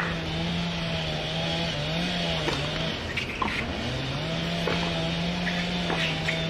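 An engine running with a steady drone nearby. Its pitch sags a little about two seconds in and climbs back about a second and a half later.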